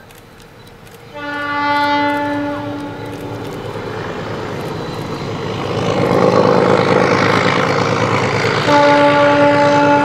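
ALCo DL537 metre-gauge diesel locomotives sounding their horn: a blast of about two seconds starting a second in, then a second long blast near the end. Between the blasts the diesel engines and running train grow steadily louder as the train approaches.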